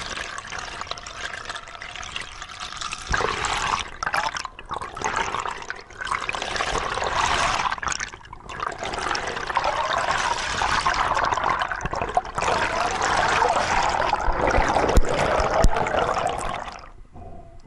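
Underwater rushing and bubbling water around a freediver's camera, loud and uneven with brief breaks, stopping shortly before the end.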